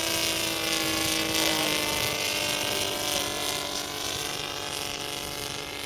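Saito three-cylinder radial four-stroke engine of a flying RC scale Deperdussin model running steadily, an even engine drone with many steady overtones, easing off slightly in loudness in the second half.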